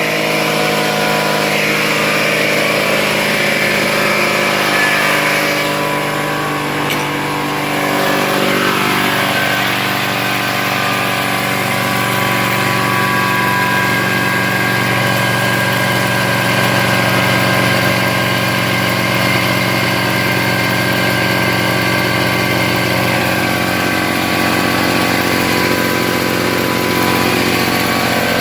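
Ridgid portable air compressor running steadily on its first start, its motor and pump filling the tank.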